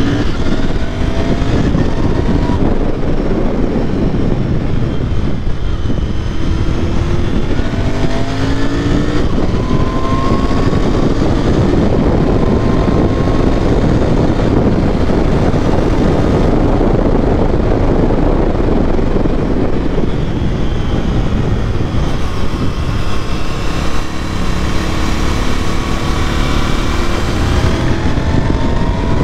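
Royal Enfield Interceptor 650's parallel-twin engine running under load on the move, its pitch climbing and dropping back several times as the bike accelerates through the gears. It has the uneven beat of its 270° crank, which sounds like a V-twin.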